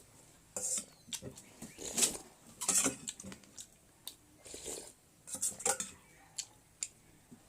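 Eating sounds: cutlery clicking against a dish, with several short hissy mouth noises in between, irregularly spaced.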